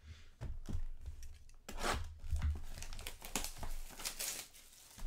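Trading card pack wrapper being torn open and crinkled, in short rustling spells about two seconds in and again from about three seconds on, with soft knocks of cards and packs being handled on the table.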